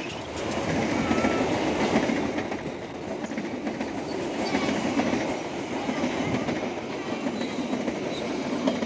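Train passing close by on the railway line: a steady, loud rush of wheels on rails.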